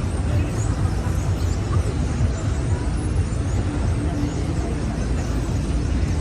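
City street traffic ambience: a steady low rumble of engines and tyres from passing cars and buses, with a faint engine hum in the second half and a murmur of passersby's voices.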